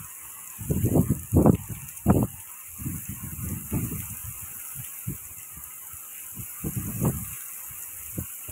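Heavy monsoon rain hissing steadily, with irregular gusts of wind buffeting the phone microphone in low bursts several times.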